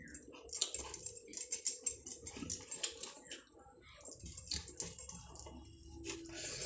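Close-up eating sounds: chewing with a dense run of small wet clicks and smacks from the mouth.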